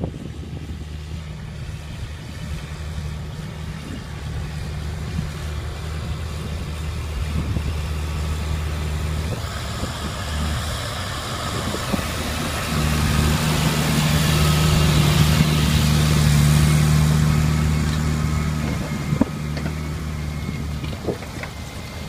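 Diesel engine of a Caterpillar Challenger 765C rubber-tracked tractor running steadily under load as it pulls an eight-furrow plough. The hum grows louder as the tractor comes close and passes, loudest over the second half, then eases off near the end.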